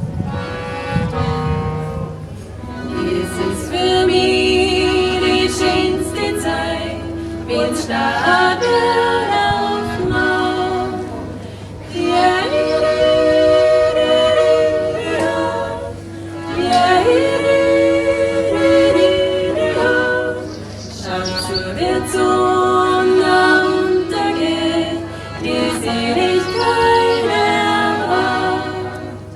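A women's folk vocal group singing in harmony, several voices moving together in phrases a few seconds long with short breaks between them.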